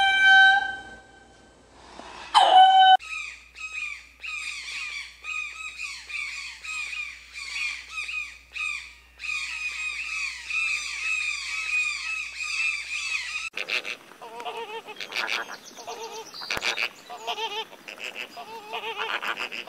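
Black-and-white ruffed lemur calls: a loud, pitched call right at the start and another about two seconds in. Then a long run of rapid, high squeaky bird chirps, several a second, for about ten seconds. After that come flamingos' lower, honking calls, repeated in short groups.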